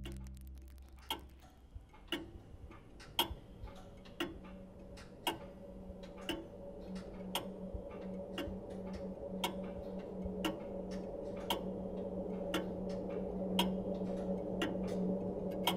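Clock ticking about once a second, from the clock set into a carved cherry-wood prosthetic leg. Music fades out at the start, and a low steady hum builds up behind the ticking from about a third of the way through.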